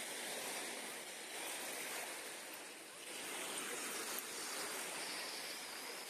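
Sea surf: waves breaking and washing up onto a sandy beach as a steady rush, easing briefly about halfway through before swelling again.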